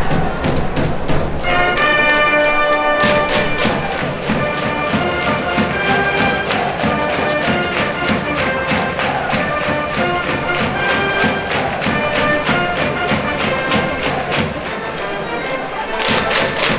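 School brass band cheering from the stands: brass playing a melody over a fast, steady drum beat.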